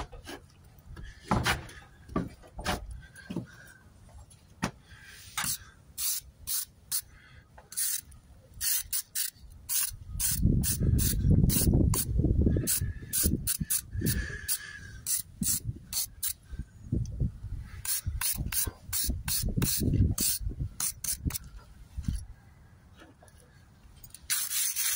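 A jointing tool and brush scraping along fresh mortar joints between stone blocks, in many short, quick strokes. A low rumble comes through in the middle.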